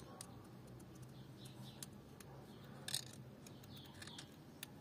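Quiet: faint small clicks and scrapes of a thin metal pick probing a hole in the engine's cylinder head, the strongest click about three seconds in, with a few faint bird chirps.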